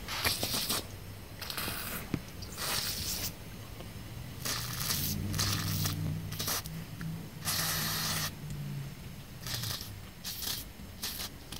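Aerosol brake cleaner hissing out through a thin extension straw in repeated short bursts, about ten, as it is sprayed into a small-engine carburetor body to flush out its fuel passages.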